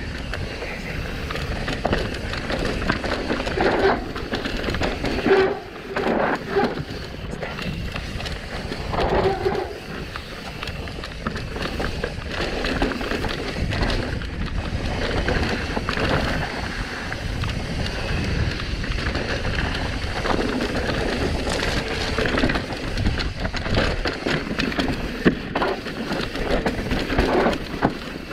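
A mountain bike descending a rough downhill trail at speed. Tyres rumble over dirt, and the bike clatters and knocks over bumps, with wind rushing on the microphone.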